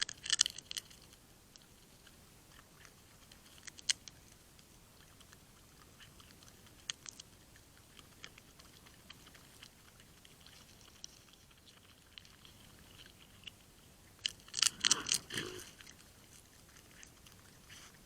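An animal eating close to the microphone: short bursts of crisp crunching clicks a few seconds apart, the longest and loudest about fifteen seconds in.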